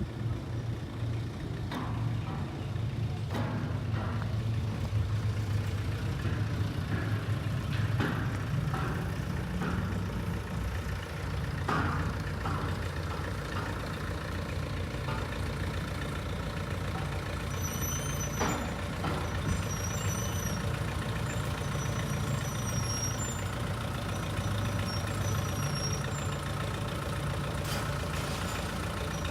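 Backhoe engine running steadily at a low rumble, with a few sharp knocks scattered through it and short high chirps in the second half.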